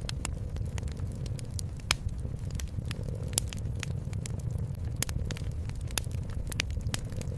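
Wood fire crackling in a fireplace: irregular sharp pops and snaps, a few louder ones about two, three and a half, five and six seconds in, over a steady low rumble.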